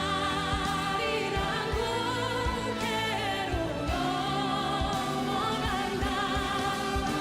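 A man singing long held notes with a strong wavering vibrato and sliding pitch, over steady musical accompaniment with a regular low beat.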